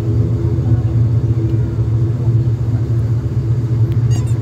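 Steady cabin drone of an airliner's turboprop engines as it taxis. A quick run of faint high clicks comes about four seconds in.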